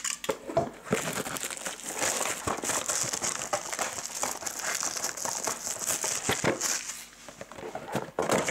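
Crinkling packaging as a sealed box of trading cards is opened and its foil card packs are pulled out and handled: a dense crackling with many small clicks that eases off briefly near the end.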